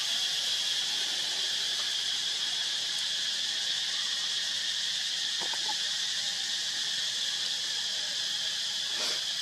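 Steady, high-pitched drone of an insect chorus, with a couple of faint ticks about halfway through and near the end.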